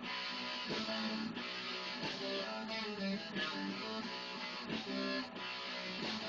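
Electric guitar strumming chords in a steady rhythm, about three strums every two seconds, as an instrumental jam on a new song.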